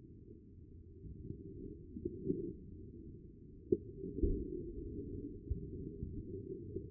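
Hurricane wind buffeting the phone's microphone: a muffled low rumble with irregular dull thumps, a sharp knock a little under four seconds in and a heavier thump just after.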